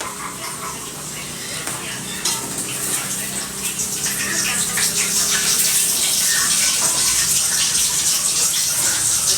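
Water running steadily from a tap, growing louder about four seconds in, with a few light knocks.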